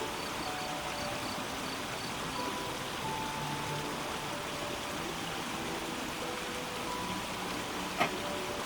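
Soft background music of scattered held notes over a steady rushing hiss, with one sharp click near the end.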